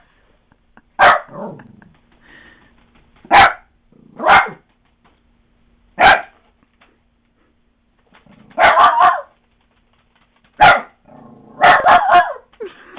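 Lhasa Apso puppy barking at a bouncing electronic toy: sharp single barks a second or two apart, with a few quick runs of two or three barks.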